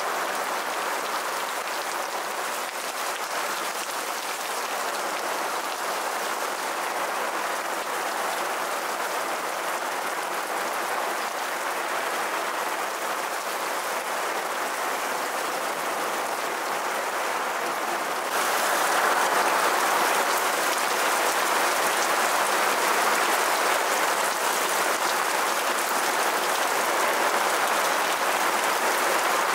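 Heavy rain pouring on a tipi tent and the grass around it: a steady, dense hiss that gets suddenly louder about two-thirds of the way through.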